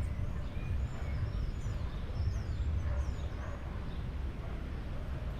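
Birds chirping in short high calls during the first half or so, over a steady low rumble.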